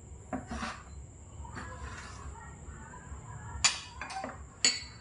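Small ceramic bowls being set down on a table: a few light knocks, then two sharp clinks about a second apart near the end.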